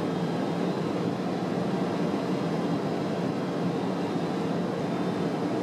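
Steady cabin noise inside a Boeing 767 cockpit on final approach: an even low rush of airflow and engines that does not change, with a faint high steady tone above it.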